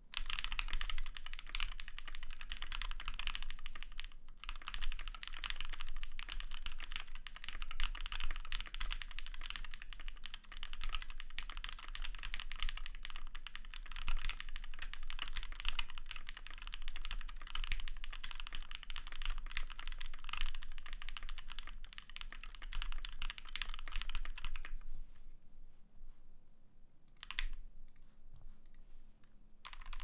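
Fast, continuous typing on a Tofu60 custom 60% mechanical keyboard with lubed Akko CS Radiant Red linear switches, PBT keycaps and an aluminium plate, its PCB tape-modded and foamed. The keystrokes stop about 25 seconds in, with only a stray press or two after that.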